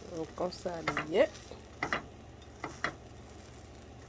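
Egg-and-bread omelet frying in a nonstick pan with a low sizzle, while a metal utensil scrapes and taps against the pan several times.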